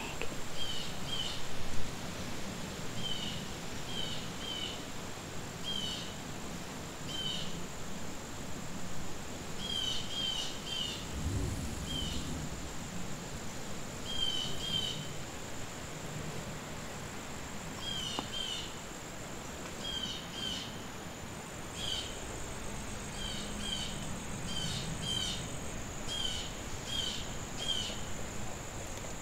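Insect chorus: a steady high-pitched drone with short chirps repeating at irregular intervals, roughly one to three a second. A low thump comes about eleven seconds in.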